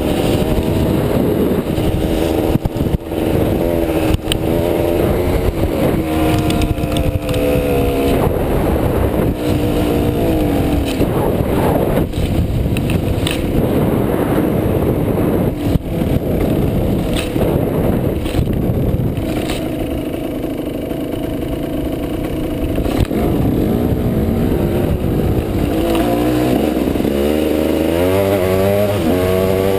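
Off-road motorcycle engine being ridden hard, revs rising and falling through the gears, with occasional knocks as the bike bounces over rough ground. The engine eases off about two-thirds of the way through, then revs climb sharply again near the end.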